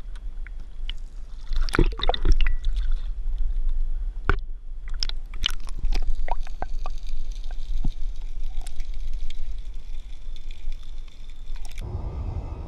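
An action camera underwater: a muffled water sound with a low rumble and scattered sharp clicks and knocks. Near the end it switches abruptly to a steady open-air rush as the view comes above the water.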